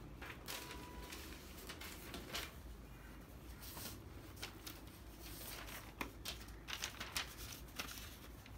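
Faint scattered clicks and rustles of small parts being handled, over a steady low hum.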